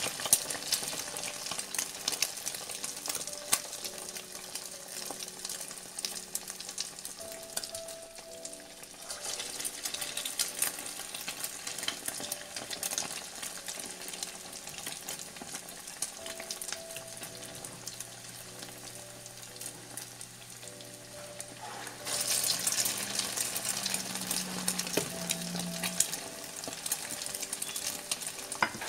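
Bread samosas deep-frying in hot oil in a steel pan: steady sizzling and crackling of bubbling oil. The sizzle gets suddenly louder about 22 seconds in, as a second samosa goes into the oil.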